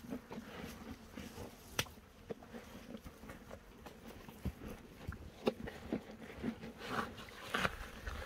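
Horses moving about on dry ground: irregular soft clicks and knocks that come more often and louder in the second half, over a faint buzz of insects.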